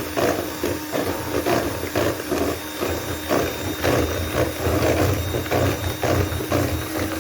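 Electric hand mixer running, whipping powdered crème chantilly mix with cold liquid: a steady motor hum, with the beaters knocking and scraping in the bowl about three times a second.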